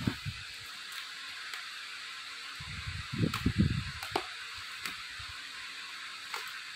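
Bubble-wrapped parcel being handled on a tiled floor: dull bumps about three seconds in, a few light clicks, and a scissors snip near the end, over a steady background hiss.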